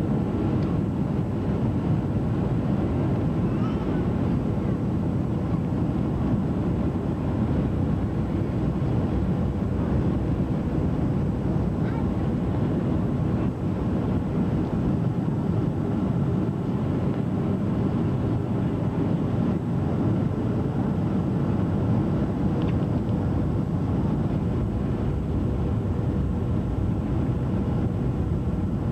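Steady jet airliner cabin noise in flight: a low, even drone of engine and airflow heard from a window seat beside the engine, with a faint steady whine over it.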